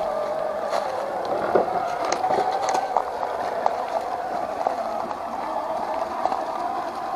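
Electric motor and gearbox of an Axial SCX10 II RC crawler whining steadily as it drives, the pitch wavering slightly with throttle, with scattered light clicks and knocks from the chassis and wheels.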